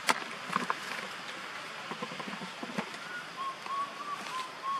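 Outdoor forest ambience with a sharp click near the start and a few soft knocks. From about three seconds in, an animal repeats short whistled calls, about four a second.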